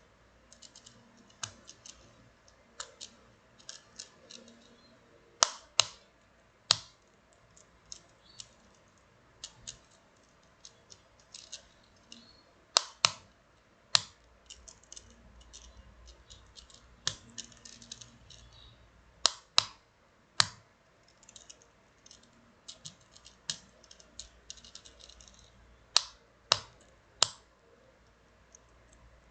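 Sharp plastic clicks and light taps from handling a Simple Dimple 3-pop fidget spinner. Louder clicks come in groups of three about every seven seconds.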